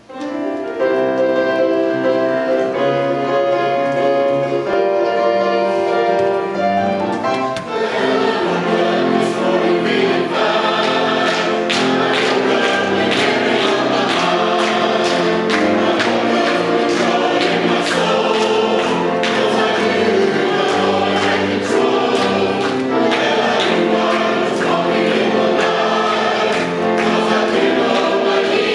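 Church choir singing a gospel song. It opens with held chords that change about once a second, and a fuller, busier sound comes in about eight seconds in.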